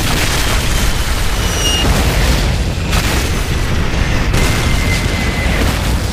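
Loud booming and rumbling, with sharp hits about three seconds in and again about four and a half seconds in.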